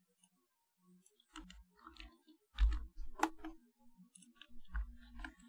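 Typing on a computer keyboard: a quick run of key clicks starting about a second in, with a few heavier, dull thumps among them.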